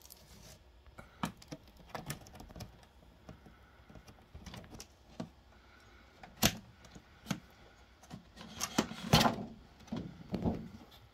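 A cardboard box being opened by hand: scattered clicks, taps and scrapes as a box cutter runs along its edge and the flaps are lifted, with a sharp snap about halfway through and a louder bout of knocking and rustling near the end as the plastic packaging inside is handled.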